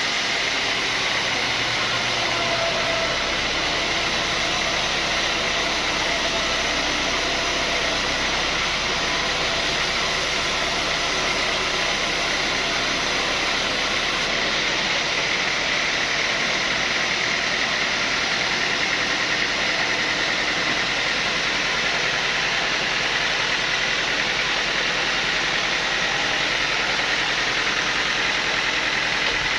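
Sawmill machinery running steadily: a continuous mechanical drone with a faint steady whine and no break.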